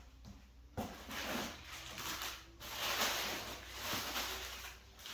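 Packing material rustling in uneven handfuls with small clicks and knocks, as parts are dug out of a well-packed shipping box; it starts a little under a second in.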